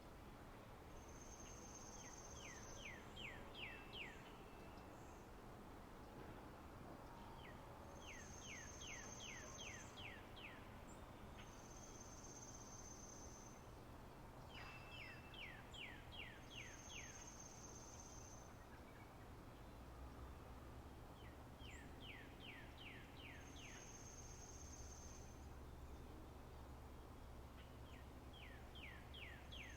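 Songbirds singing a repeating song, faint. A thin, steady high whistle held about a second alternates with a quick run of six to eight down-slurred notes, each coming back every few seconds over a faint steady low hum.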